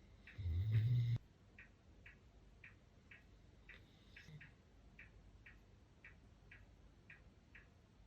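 Siberian husky giving one short, low snore about half a second in, over steady ticking at about two ticks a second.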